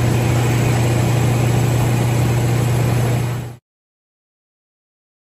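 Bowling-ball drill press running with a steady low hum and grinding noise as its bit bores into a bowling ball clamped in the jig. The sound fades out quickly about three and a half seconds in, leaving silence.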